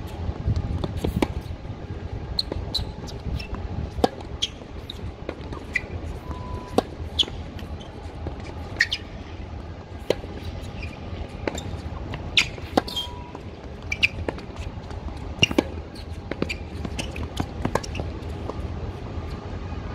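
Tennis balls struck by racquets and bouncing on a hard court: irregular sharp pops, a few each second, over a steady low rumble.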